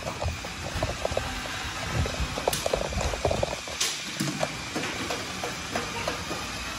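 Rustling and clattering from a body-worn camera as its wearer moves about, scattered with many light ticks and taps, and two sharper clicks in the middle.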